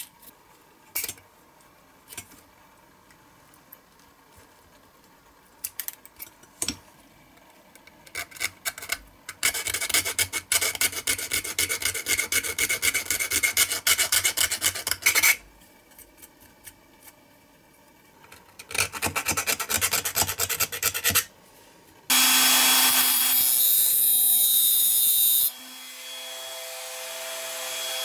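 A small hand file rasps on a piece of thin steel sheet in quick, even strokes, in two spells of several seconds each, after a few light clicks of tools being handled. Near the end a small power tool starts and runs steadily with a high whine, then drops to a quieter hum.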